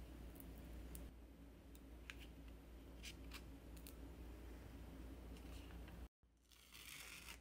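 Faint, sticky clicks of a wooden spatula spreading thick hard wax over the skin of a leg, over a low steady hum. After a sudden cut near the end comes a short rustling hiss.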